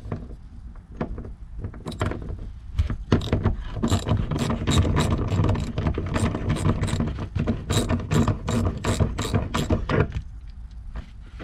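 Socket ratchet clicking in quick runs as a 14 mm seat belt mount bolt is backed out of the floor.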